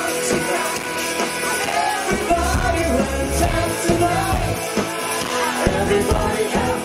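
Live band playing on stage: singers on microphones over a drum kit and electric guitar, with a steady drum beat.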